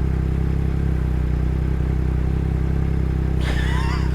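A 2021 Yamaha MT-09's 890 cc inline-three engine, breathing through an Akrapovic race exhaust, running at a steady, unchanging pitch. A brief high wavering chirp comes in over it near the end.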